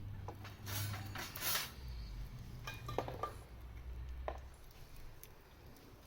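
Cookware and utensils being handled: a scraping rustle about a second in, then a few sharp clinks, one ringing briefly, near the middle.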